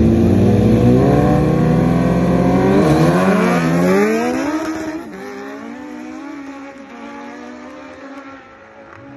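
Two sport bikes, a Suzuki Hayabusa and a Kawasaki ZX-14, drag racing. Their inline-four engines are held at high revs on the line, then launch about three seconds in with the pitch climbing through the gears. The engine note drops suddenly in loudness about five seconds in and fades as the bikes pull away.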